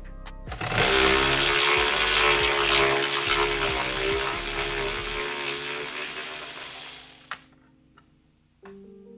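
A handheld power tool runs with a wavering whine for about six seconds, then winds down and stops. A single click follows.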